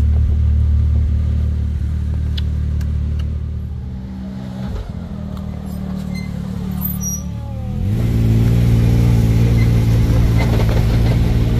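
Can-Am side-by-side's engine running at a low steady speed, then revving up about eight seconds in and holding a higher, louder pitch as the machine gets under way.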